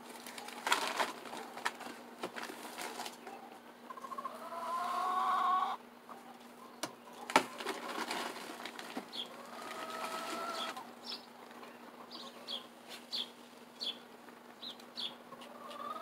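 Backyard hens calling in two drawn-out, wavering notes of about two to three seconds each, with rustling and scraping as chicken feed is scooped from a bag in a bin. Short high chirps come in the second half.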